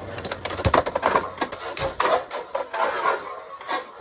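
Beyblade X spinning tops battling in a plastic stadium: rapid sharp clacks of repeated collisions with scraping and rattling between them, thinning out toward the end as one top is knocked into the extreme zone.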